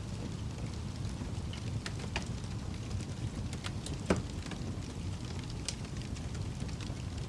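Wood fire crackling: a steady low rumble with scattered snaps and pops, the loudest about four seconds in.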